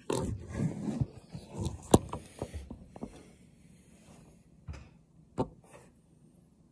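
Handling noise of a phone being moved and set in place: rustling with a string of knocks and taps, the sharpest about two seconds in, then two more knocks about five seconds in.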